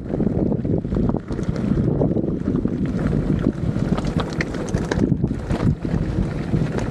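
Wind buffeting the microphone: a loud, uneven low rush with no clear engine tone.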